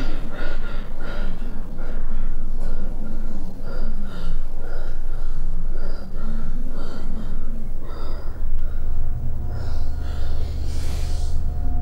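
A woman breathing quickly with gasps, the heavy breathing of fright. A steady low drone comes in about eight seconds in.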